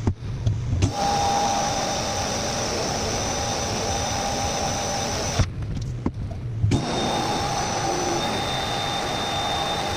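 A steady, loud machine whir with faint high whine tones, breaking off twice for about a second, with low knocks during the breaks.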